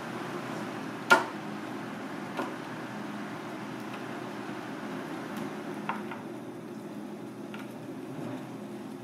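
Kitchen work sounds: a steady background hum with one sharp knock about a second in and two lighter knocks later, from cookware and utensils being handled.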